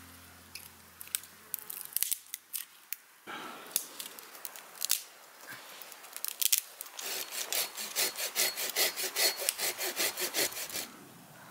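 Firewood being prepared for a small wood stove: a few sharp cracks of dry twigs breaking, then a hand saw cutting through a stick in quick even strokes, about five a second, stopping shortly before the end.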